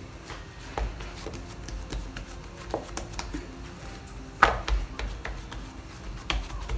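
Hands handling a ball of soft dough on a floured work surface, setting it down and pressing it flat. A scatter of soft thuds and taps, the loudest about four and a half seconds in.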